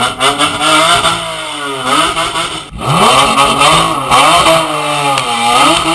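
Mercedes M120 six-litre V12 in a Nissan drift car revved hard through its exhaust. The pitch climbs and falls several times, with a short break about midway. It is fitted with one of the header setups that did not fix its harsh sound.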